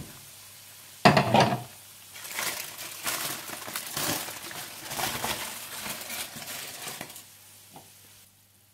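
A glass pot lid knocks as it comes off about a second in, then aluminium foil crinkles and rustles for several seconds as it is peeled from the rim of a rice pot, uncovering pulao after its dum steaming.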